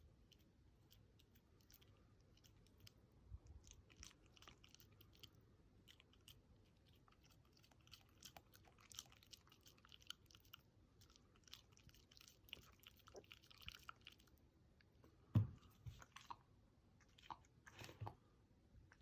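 A dog crunching and chewing dry food, with irregular small crackles. A louder thump comes about 15 seconds in, and a few knocks follow near the end.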